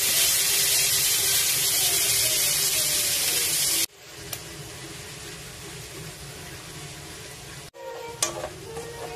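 Squid sizzling in a pan: a loud, steady sizzle that drops to a quieter sizzle about four seconds in. Near the end a spatula stirs the squid, with clicks against the pan.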